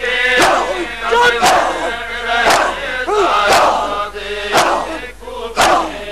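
A crowd of men beating their chests in unison (matam), a sharp slap about once a second, six times, with massed male voices chanting between the strikes.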